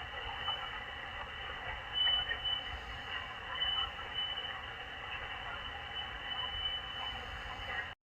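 Static and hiss from a Malachite DSP SDR radio receiver on a quiet channel, with a steady high whistle that swells and fades. The audio cuts off suddenly near the end.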